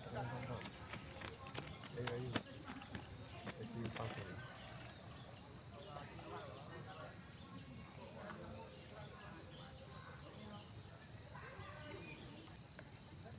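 Insects chirring in a steady, high-pitched, rapidly pulsing drone, with a few light clicks in the first few seconds.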